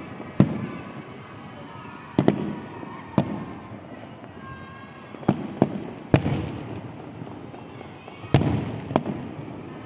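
Aerial fireworks shells bursting: about ten sharp bangs at irregular intervals, some in quick pairs, each followed by a rolling echo.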